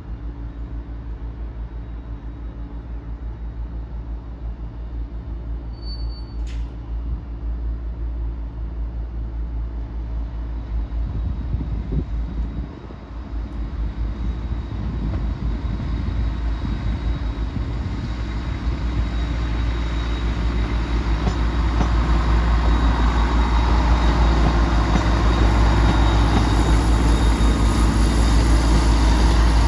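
EMR Regional Class 170 Turbostar diesel multiple unit, 170530, moving off and coming closer, its underfloor diesel engines giving a steady low rumble that grows steadily louder. Rail and wheel noise rises over it near the end as the unit draws level.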